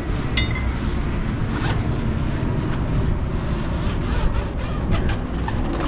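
Webbing tie-down strap being pulled down off a flatbed load, sliding and rustling with a few faint clicks, over a steady low rumble.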